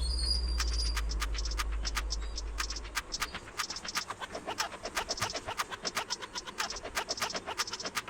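A rapid, uneven run of sharp clicks, several a second, over a low hum that stops about three seconds in.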